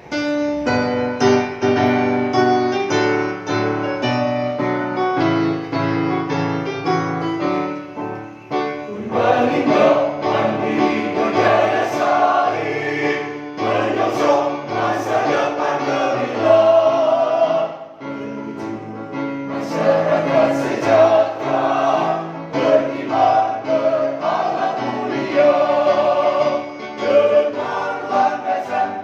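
Mixed choir of women and men singing a march song with keyboard accompaniment. The first eight seconds or so are keyboard chords in a steady march rhythm, and then the voices come in.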